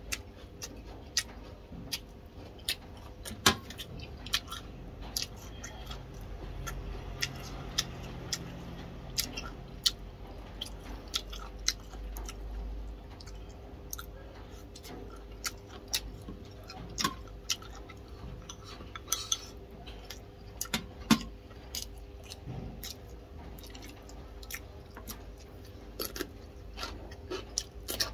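Close-miked eating: chewing with many sharp wet mouth clicks and smacks while noodles and fish are eaten, with chopsticks clicking against a porcelain bowl. A faint steady hum runs underneath.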